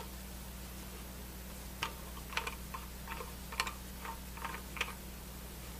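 Light, irregular clicks and taps as the valve handles of a Yellow Jacket Brute II manifold are turned down by hand to seat the nylon pistons against the brass seats, over a low steady hum.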